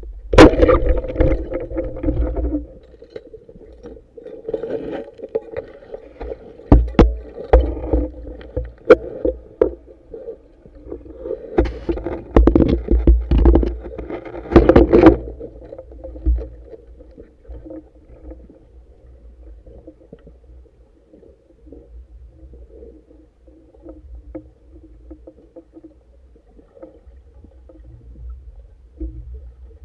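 Underwater sound picked up by a camera on a band-powered speargun: a sharp crack about half a second in as the speargun fires, followed by bursts of water noise with clicks and knocks. After about 16 seconds it settles to quieter, steady water noise.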